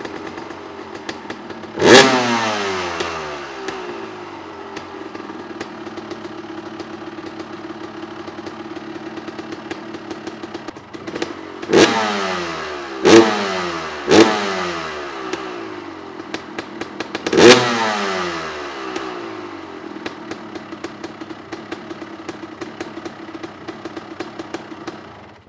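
Honda CR250 two-stroke single-cylinder engine, warm, idling steadily and revved five times: once about two seconds in, then four quick blips in a row past the middle, each rev climbing sharply and falling back to idle. It is on its old Mikuni carburetor, jetted for cooler weather and running extra rich, so it loads up with oil at idle unless it is revved out.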